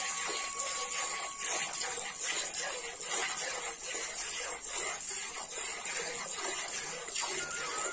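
A buffalo being milked by hand into a metal pail: rhythmic squirts of milk striking the pail, about two or three a second.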